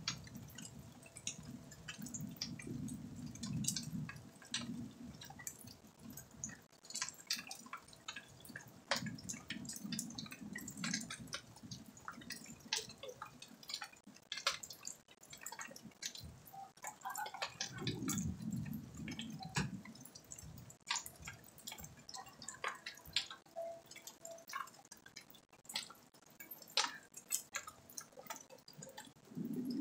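Rain dripping in irregular ticks and taps, with three low rumbles of a couple of seconds each: near the start, about a third of the way in, and past the middle.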